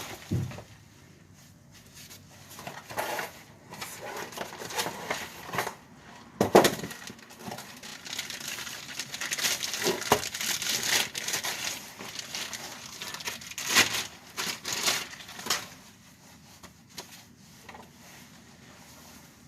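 Hand tools clinking, scraping and knocking against metal in irregular bursts, with a louder knock about six and a half seconds in and another near fourteen seconds, as a rear shock absorber is worked loose under the car.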